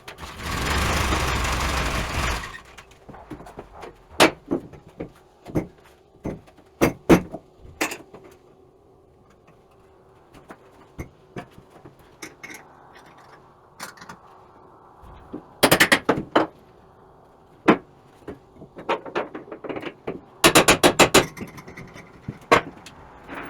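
A loud rush of noise for about two seconds at the start, then scattered knocks and thunks, with two quick rattling clatters later on, over a faint steady hum.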